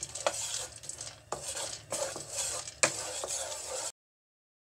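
Wooden spatula stirring pine nuts as they toast in a nonstick frying pan: a scraping rustle with several sharp clicks as the spatula and nuts knock against the pan. The sound cuts off abruptly near the end.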